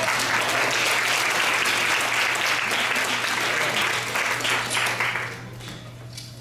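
Audience applauding: many hands clapping in a dense patter that dies away about five seconds in.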